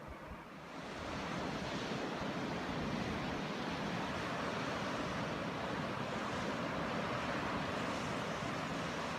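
Ocean surf washing in, a steady rush that swells up about a second in and then holds.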